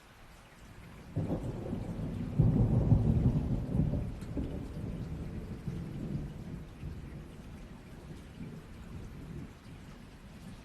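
Thunder rolling over steady rain: a low rumble that comes in about a second in, peaks a couple of seconds later and dies away slowly, with rain hiss throughout.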